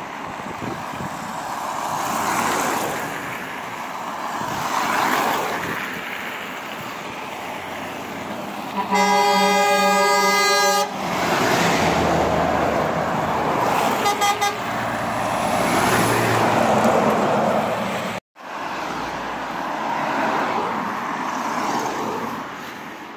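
Road traffic passing close, swelling and fading with each heavy truck. A truck horn gives one long blast of about two seconds around nine seconds in, then a few short toots about five seconds later.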